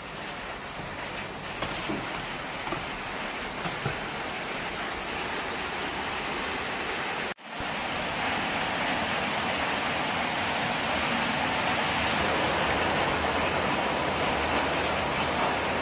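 Steady rushing background noise with a few faint clicks. It cuts out for a moment about seven seconds in and comes back slightly louder.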